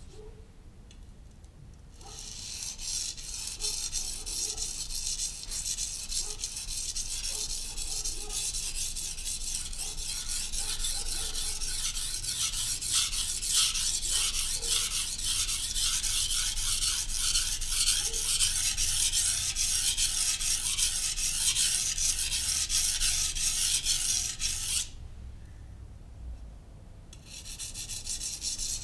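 Knife blade being stroked rapidly back and forth on a Naniwa Professional 600 (Chosera) whetstone, a steady run of rubbing strokes that starts about two seconds in, breaks off for about two seconds near the end, then starts again.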